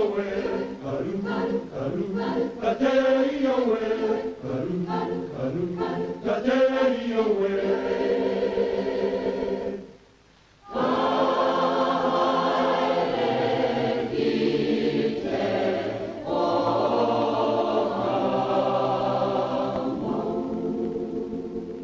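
Maori choir singing: a moving melody for the first several seconds, then long held chords after a short break about ten seconds in.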